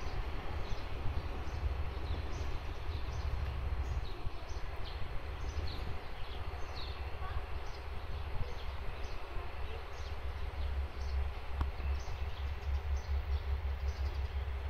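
Outdoor ambience: a steady low rumble under short, high bird chirps repeated again and again.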